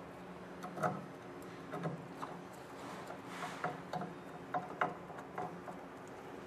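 Small, irregular clicks and ticks of a screwdriver turning screws and gloved hands handling a 4720 print head as it is fastened onto a printer's metal carriage.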